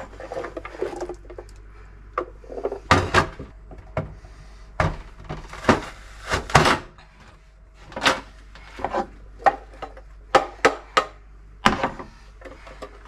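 Kitchen handling sounds: an irregular run of sharp knocks, clunks and clicks as things are moved, opened and set down, about fifteen hits scattered through.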